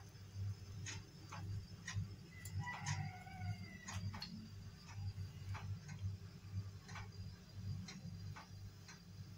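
Clock ticking faintly and evenly, about twice a second, over a low steady hum.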